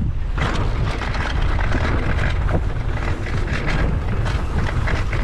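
Wind buffeting the microphone of a camera on a mountain bike riding downhill, with tyres on damp dirt and short knocks and rattles from the bike over rough ground.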